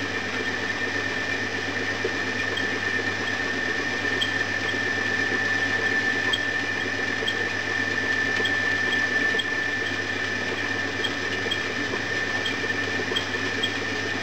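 Homemade foundry sand mixer running steadily, its pan turning while the roller and plough work green sand mixed with coal dust: a low motor hum with a constant high whine and faint scattered ticking.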